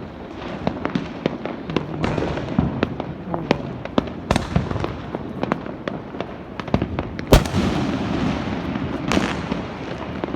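Fireworks and firecrackers going off all around: a dense, irregular run of sharp bangs and pops over continuous crackling, with one much louder bang about seven seconds in.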